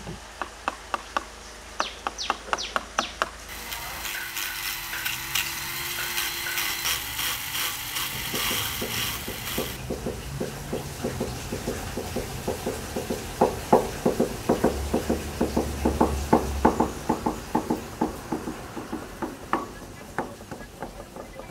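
Wooden mallet striking a chisel into a tree trunk, a steady run of sharp knocks about three a second. A hissing sound runs for several seconds partway through.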